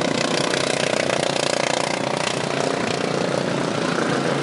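Racing lawn mower engines running at speed around the track, a steady mixed engine drone with no breaks.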